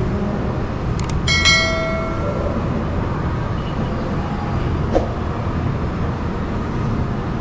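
Steady low rumble of background ambience, with a couple of sharp clicks and a short metallic ringing clink about a second in that fades away.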